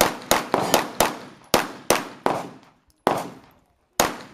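A semi-automatic pistol fired in rapid succession, about ten shots in quick strings, the spacing widening near the end. Each shot has a short echoing tail.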